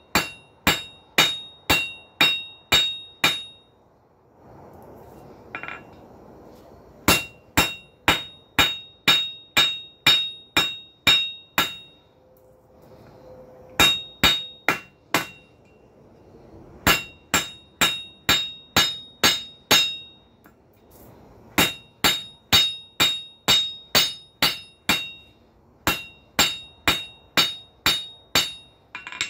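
Blacksmith's hand hammer striking a hot steel bar on an anvil, working it over the anvil's corner to isolate material. The blows come about two to three a second in runs of six to ten with short pauses between, each with a bright metallic ring.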